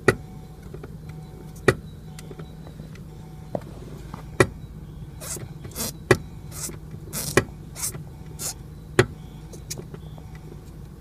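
Car brake pedal being pressed repeatedly, each press giving a sharp knock from the vacuum brake booster, at irregular intervals, some with a short hiss. The knock is felt through the pedal and its cause is unknown to the owner. A steady low hum runs underneath.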